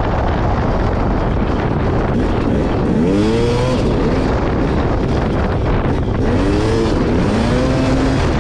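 Off-road dirt bike engine running hard along a forest trail. Its pitch rises and falls as the throttle is worked, with surges about three seconds in and again twice near the end.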